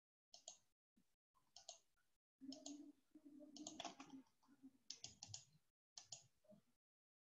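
Faint clicking in short groups of two or three clicks, about once a second, coming over a video-call line that drops to dead silence between them.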